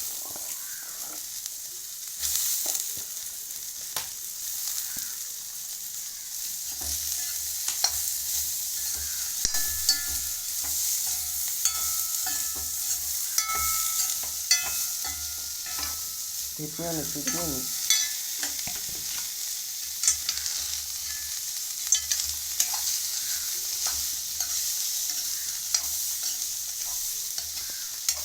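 Beans stir-frying in oil in a pan, sizzling steadily, while a spatula stirs and scrapes them with many irregular clicks and knocks against the pan.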